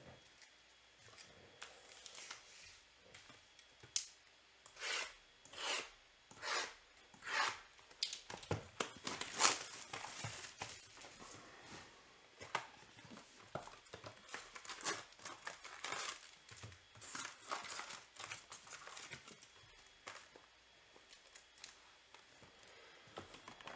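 A Topps Chrome trading card box being torn open by hand, its packs crinkling as they are handled: a long run of short rips, crinkles and rustles of paper and foil wrapping.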